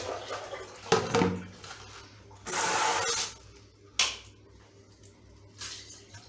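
A plastic basin handled on a tiled floor while its bath water is changed: a knock about a second in, a short gush of poured water in the middle, and another sharp knock about four seconds in.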